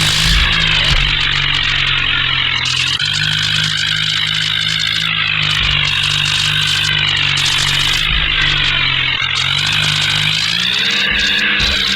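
Engine of a heavy vehicle, presumably the modified bulldozer, running steadily, its pitch rising for a moment about ten and a half seconds in as it is revved.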